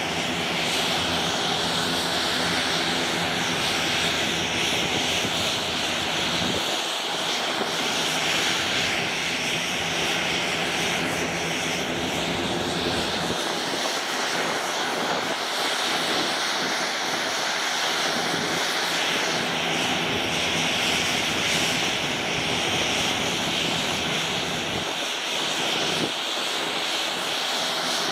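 Beech B100 King Air's twin Garrett TPE331 turboprop engines running at taxi power with the propellers turning, a steady high whine as the aircraft rolls slowly along the taxiway.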